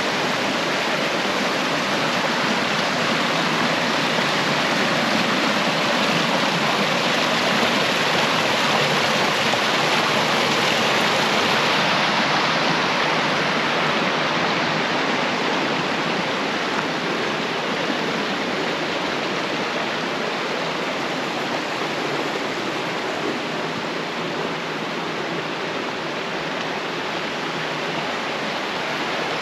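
Steady rush of running water, a dense even hiss that eases a little after about twelve seconds.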